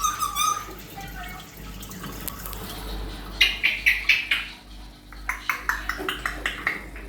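African grey parrot making a few short chirps, then a quick run of sharp clicks and a steadier series of about six clicks a second.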